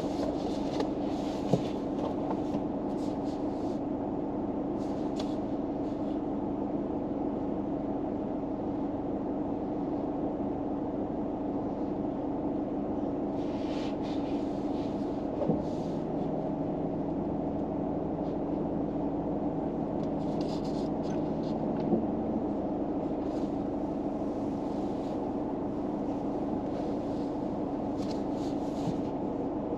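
Steady hum inside a car with its engine running, with a few brief soft rustles, such as a page being turned, partway through.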